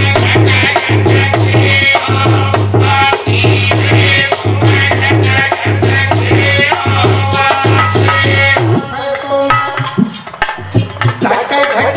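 Live Indian folk devotional music: a tabla-type hand drum and shaker-like percussion playing under a melody line, with little singing. The music thins out about nine seconds in, then the drumming picks up again near the end.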